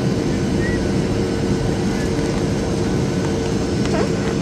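Steady cabin noise of a Boeing 737-800 on approach: a dense rumble of its CFM56 jet engines and the airflow past the fuselage, with a constant drone running underneath.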